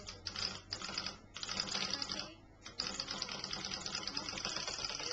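Racing Christmas-pudding toy's clockwork mechanism running with a fast, dense clicking rattle, breaking off for about half a second a little past two seconds in, then running on steadily.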